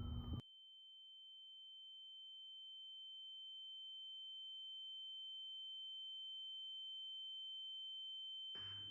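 A steady high-pitched sine tone with a fainter lower tone beneath it, growing slowly louder over otherwise near silence after the other sound cuts out about half a second in. It is an edited-in ear-ringing sound effect.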